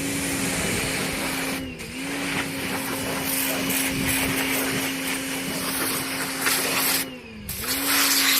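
Pressure washer running with its motor humming and the water jet hissing; the spray breaks off briefly twice, just before two seconds in and again about seven seconds in, and the motor's hum dips and recovers each time.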